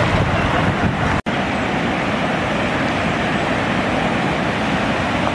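Steady rushing noise of a river in flood, fast water running over its banks, with a brief dropout about a second in.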